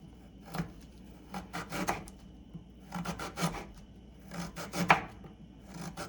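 Knife slicing fresh ginger into thin slices: several short runs of quick cuts with pauses between.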